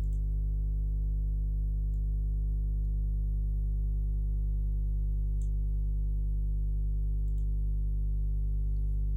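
A steady low synthesizer drone: one sustained chord that holds at an even level without change, with a few faint clicks over it.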